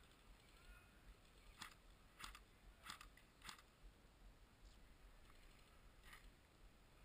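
Near silence, broken by a few faint, crisp clicks: four of them about half a second apart, and one more a few seconds later.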